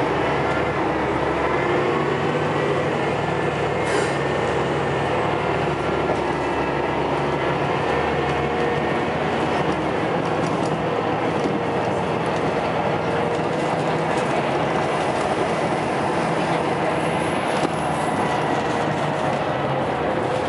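Scania L94UB bus's rear-mounted diesel engine running hard under way, a loud steady thrash heard from inside the passenger saloon, its low note shifting a couple of times with changes in load or gear through the ZF automatic gearbox.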